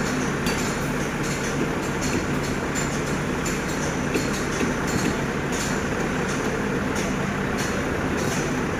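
Scania R580 V8 diesel truck engine idling steadily with an even low-pitched note.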